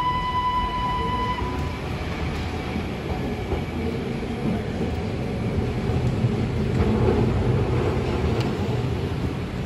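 Hiroden 700-series tram pulling away from the stop: a steady low rumble of its motors and wheels on the street rails. A steady high electronic tone sounds over it and stops about a second and a half in.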